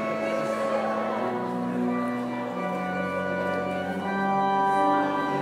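Organ playing slow, sustained chords, with the chord changing twice partway through.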